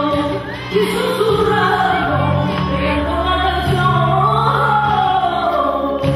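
A group singing a flamenco-style zambomba song together, their voices sliding between notes, over steady low sustained accompanying notes.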